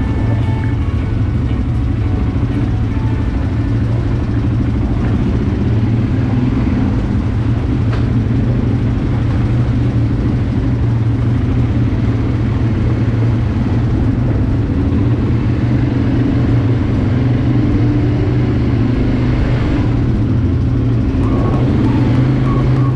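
ATV quad bike engine running steadily while the bike is ridden along the trail.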